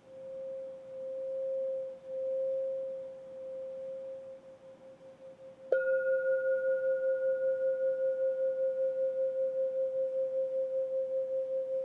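Singing bowl ringing with one clear tone that slowly wavers and fades, then struck again about six seconds in and ringing on with a steady wobbling beat and a fainter higher overtone.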